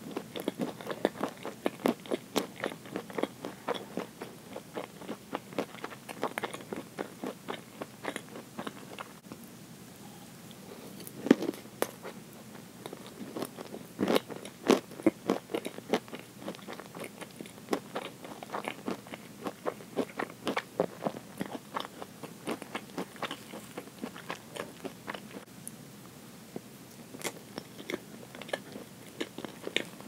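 Close-miked chewing of soft roll cake with cream: a dense run of small mouth clicks, easing off for a moment around ten seconds in, with a sharper click just after.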